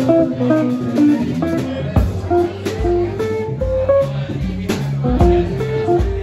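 A small jazz group playing live: an archtop electric guitar plays a line of single notes over a bass, with drums and a ride cymbal struck close by.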